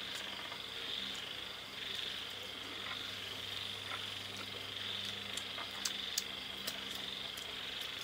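High-pitched night chorus of calling insects or frogs, a steady trill that swells and fades about once a second. A few light clicks from bowls and utensils come in the second half.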